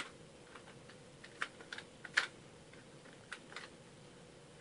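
Utility knife blade pressing and drawing along the seam of a soft plastic USB plug housing to split it open: a few scattered small clicks and scrapes, the loudest about two seconds in.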